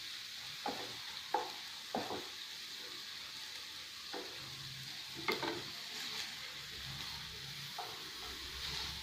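Chopped onions, green chillies and curry leaves frying in hot oil in a pan, a steady sizzle, while a spatula stirs them and scrapes against the pan every second or so. The onions are being fried until they brown.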